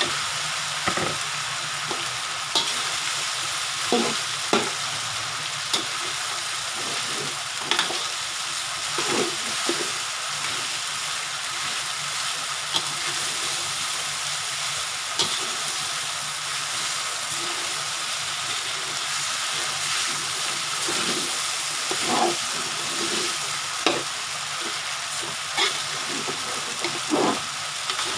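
Cooked rice frying in a metal wok with a steady sizzle, while a metal spatula stirs and turns it. The spatula scrapes and knocks against the wok every few seconds, at irregular intervals.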